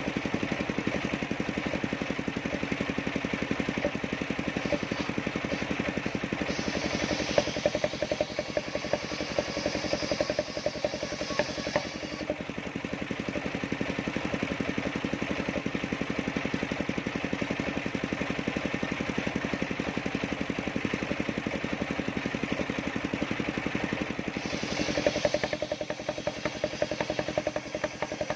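Engine of a large circular-blade sawmill running steadily with a rapid firing beat. A higher hiss joins for several seconds about a quarter of the way in, and again briefly near the end, as the spinning saw blade cuts through the timber.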